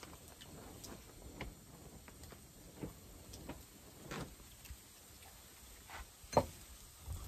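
Light clicks and knocks of a seasoning bottle, its cap and a small measuring spoon being handled over a pan, with one sharper knock about six seconds in.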